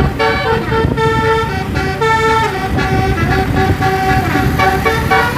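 A bus's multi-tone telolet horn playing a quick tune of changing notes, over a low engine and road rumble.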